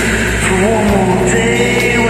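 Music: a karaoke backing track with a voice singing over it.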